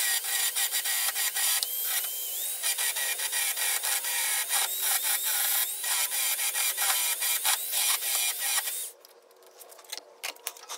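Hand-held belt file grinding back a fresh weld over a small rust hole in a car's steel rocker sill. It makes a fast, even rasping and stops abruptly about nine seconds in.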